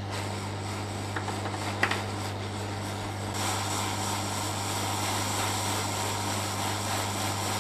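Hot air rework station blowing steadily on a circuit board during the preheat stage: a steady airy hiss over a low hum, the hiss getting louder about three seconds in. A couple of small clicks about two seconds in.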